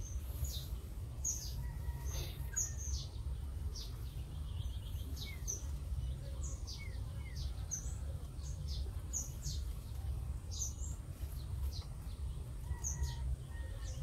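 Many short, high-pitched chirps, a few each second, over a low steady rumble.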